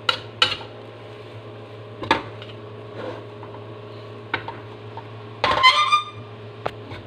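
Metal spatula stirring fried rice in a stainless steel pan, with scattered clanks and scrapes against the pan. The loudest knocks come a little after five seconds in and leave a brief metallic ring. A steady low hum sits underneath.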